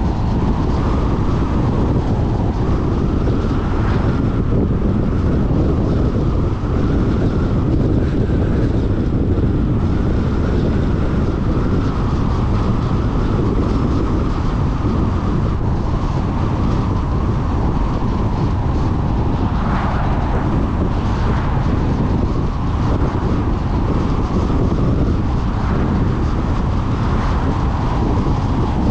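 Car driving at a steady road speed: a continuous, even rumble of road and wind noise.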